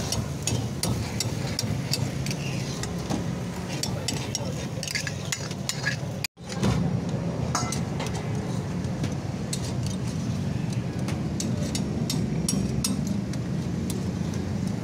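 Street-stall cooking clatter: frequent sharp clinks of metal utensils against pans over a steady low rumble, with a brief dropout about six seconds in.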